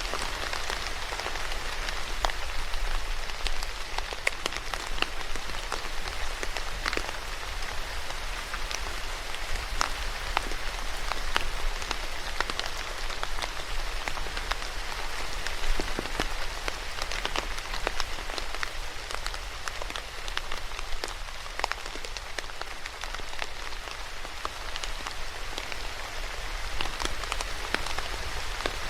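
Steady rain falling on a hard surface, with many individual drops ticking and splattering over an even hiss and a low rumble.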